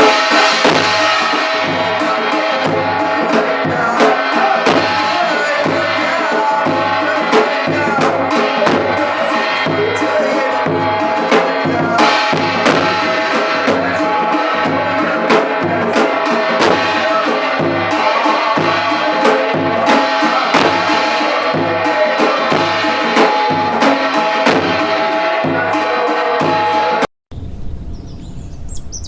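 Korean shamanic ritual music: a steady drum beat under rapid metallic gong strikes and sustained ringing tones. The music cuts off abruptly near the end, leaving birds chirping.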